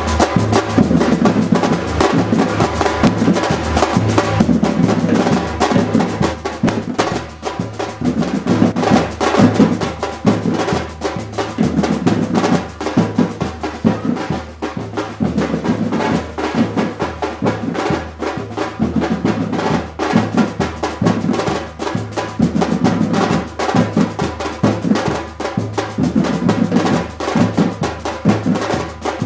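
Brazilian street percussion ensemble playing a fast, steady drum rhythm: deep bass drums under a dense pattern of snare and hand-drum strokes.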